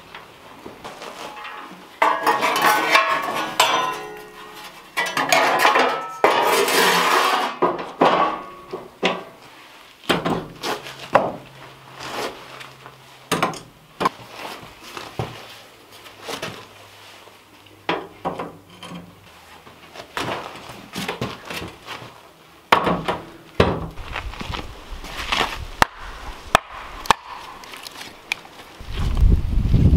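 Cast-iron wood stove parts clanking, knocking and scraping as the stove is worked on and assembled, with a long stretch of scraping a couple of seconds in and many separate metal knocks after it. Heavy low thumps come in near the end.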